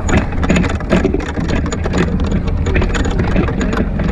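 Golf cart driving over grass: a steady low rumble of the moving cart, with many short sharp clicks and rattles scattered throughout.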